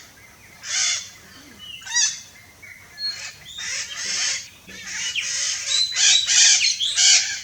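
Red-shouldered macaws calling: short, harsh squawks, a few spaced about a second apart at first, then coming thick and fast and overlapping in the second half.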